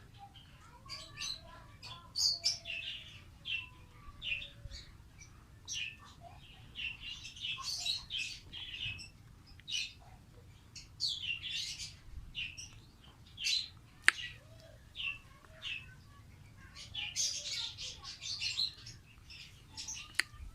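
Pet parrot chirping and calling again and again, short high calls coming singly and in quick clusters.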